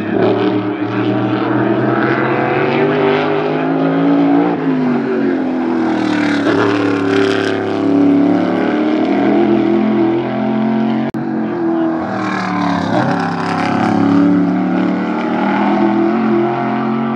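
Modified race car engines running hard around a short oval track, their pitch rising and falling as the cars come past. The sound breaks off for an instant about eleven seconds in.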